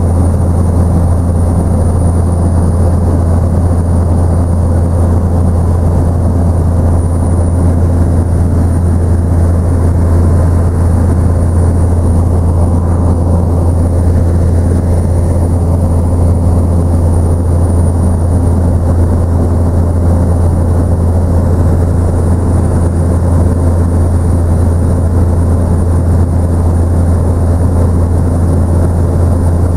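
Tour helicopter in flight, heard from inside the cabin: a loud, steady, low drone of rotor and engine with a thin, steady high whine above it.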